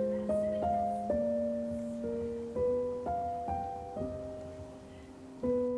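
Background music: slow solo piano, single notes and chords struck about once a second and left to ring out.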